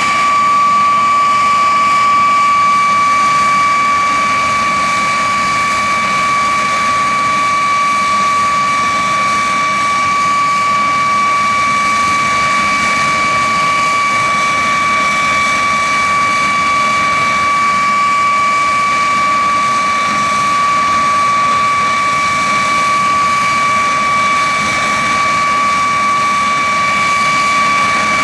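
De Havilland Vampire T.11's Goblin turbojet running steadily on the ground: a constant high-pitched whine over a rushing hiss.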